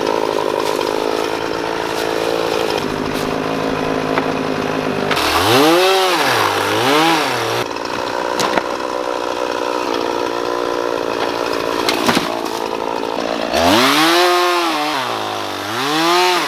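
Gas chainsaw running steadily, with its engine twice revved up and let back down in quick pairs of rises and falls, about five seconds in and again near the end.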